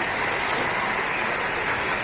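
Steady hiss of falling rain, with no distinct drops or other events standing out.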